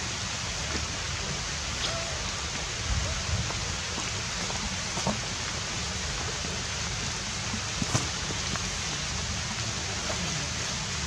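Steady, even hiss of outdoor background noise, like rain, with a few faint clicks and a brief squeak about two seconds in.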